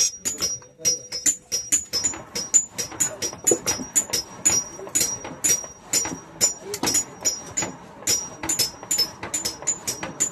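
Hand hammers striking iron on an anvil in a steady run of blows, about three a second, each blow ringing high and metallic.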